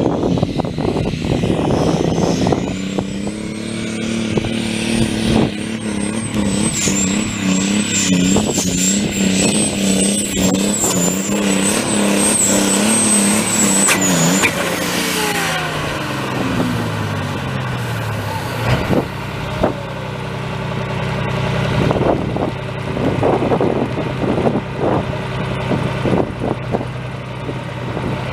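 Modified diesel pulling tractor's engine running flat out under load, with a high whistling whine above it. About fourteen seconds in the whine cuts off and the engine note slides down over a few seconds to a low, steady idle.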